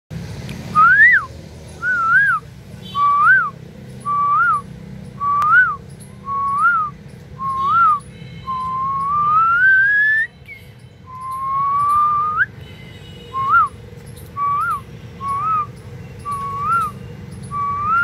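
Whistling: a series of short, clear whistled notes, each rising and falling, about one a second, with two long rising whistles around the middle.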